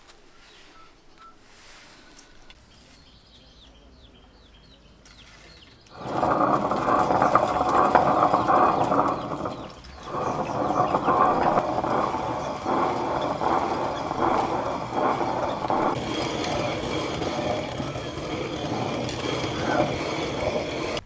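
Hand-turned stone quern grinding popped corn and roasted grains into flour: a steady stone-on-stone grinding sound. It starts about six seconds in and drops off briefly near the middle before carrying on.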